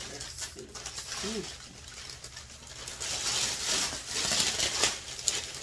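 Clear plastic wrapping bag crinkling and rustling as a handbag is pulled out of it, loudest about three and a half to five seconds in.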